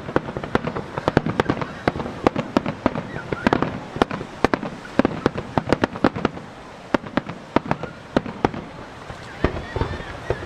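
Starmine finale of aerial firework shells bursting in rapid succession, many sharp bangs overlapping one after another. The barrage eases for a moment about three-quarters of the way through, then picks up again.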